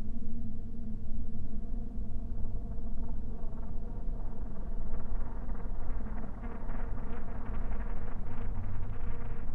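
Low, droning music with steady sustained tones; from about four seconds in, a fast flickering pulse joins above the drone.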